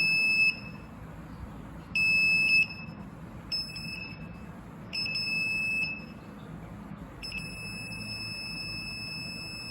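Electronic buzzer of a homemade ultrasonic-sensor alarm sounding a single high beep in four bursts of uneven length, then holding a steady, quieter tone from about seven seconds in.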